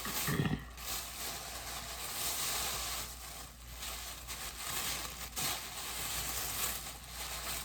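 Packaging rustling and crinkling as it is handled and opened, with a short low thump about half a second in.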